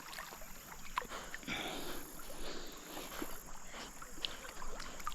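Shallow river water splashing and sloshing, with scattered small clicks and knocks.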